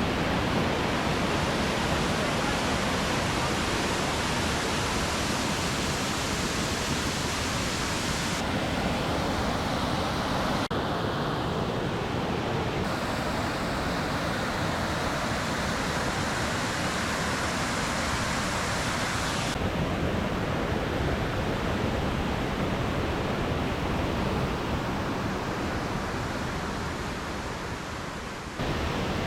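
A waterfall's falling water rushing steadily. The sound changes abruptly several times from shot to shot, and fades near the end before coming back full.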